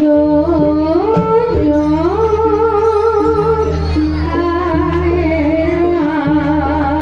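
Live music accompanying a barong dance: a melody that slides and wavers between held notes, over a steady low drum.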